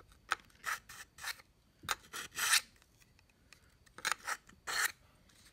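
Low-grade steel knife blade pulled through a Smith's Edge Pro pull-through sharpener: about eight short rasping strokes in quick groups, with a pause about halfway.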